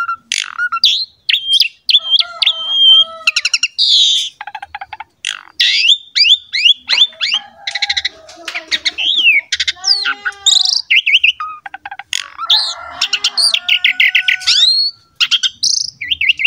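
Asian pied starling (jalak suren) in full song: a long, varied run of clear whistles, quick rising notes, rapid chattering phrases and harsh rasping passages, with short pauses between phrases.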